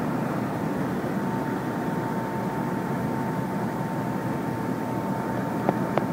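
Mobile crane's engine running steadily while it hoists a load, with a steady high whine that comes in about a second in and two short clicks near the end.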